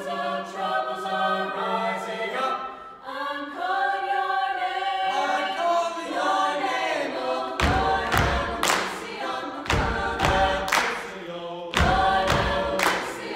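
Mixed student vocal ensemble singing a cappella in harmony. About halfway through, a heavy beat of foot stomps and hand claps joins the voices.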